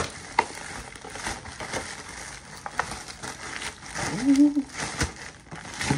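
Plastic mailer bag crinkling and rustling with many small crackles as it is pulled open and handled. A short vocal sound from the person comes about four seconds in.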